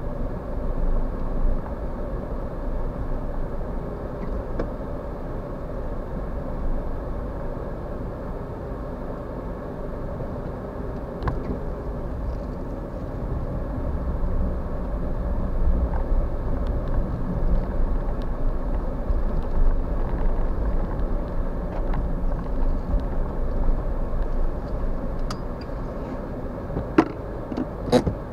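Steady low rumble of a Suzuki Every kei van's engine and tyres on snow, heard from inside the cabin as it drives slowly, with a few sharp clicks near the end.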